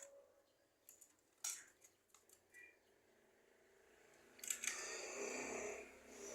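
Javan myna calling: a few short clicks and rasps and a brief high chirp, then one harsh, rasping call about a second and a half long in the second half.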